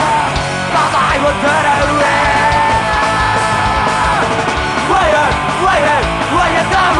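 A punk rock song: a band playing, with a singer's voice over it.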